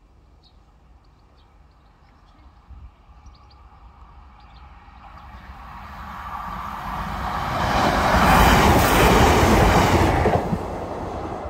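Class 156 diesel multiple unit approaching and passing the level crossing: its rumble builds over several seconds, is loudest about eight to ten seconds in, then falls away near the end.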